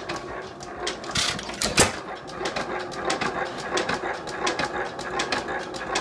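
Antique Gilson hit-and-miss stationary gas engine running on its first good run, a steady clatter of valve-gear and ignitor clicks at about three to four a second. Two louder bangs come a little over a second in and just before two seconds.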